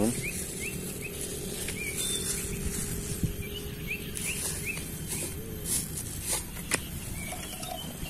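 A bird chirping in short rising notes, several quick runs of them, over low rustling and a few sharp clicks.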